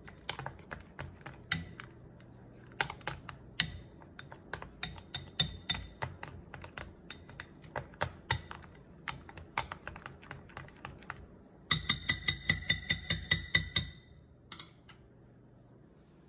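Wooden chopsticks whisking batter in a glass bowl, clicking irregularly against the glass. Near the end comes a fast run of about a dozen sharper clicks, each with a brief ringing from the bowl, and then the clicking stops.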